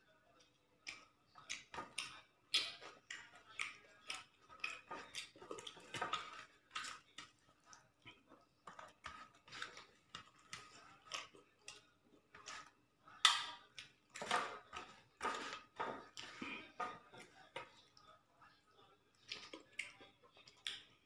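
Close-up eating sounds of a person eating rice and curry by hand: wet chewing and lip smacks in a stream of short, irregular clicks, with fingers mixing food on a stainless steel plate. A faint steady hum runs underneath.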